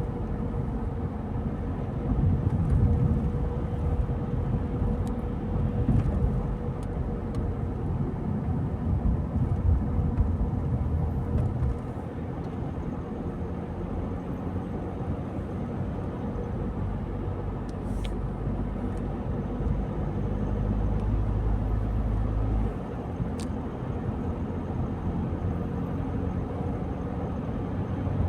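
A car being driven on a country road: a steady low rumble of engine and tyre noise. It is rougher and louder for about the first twelve seconds, then smoother, with a few faint ticks.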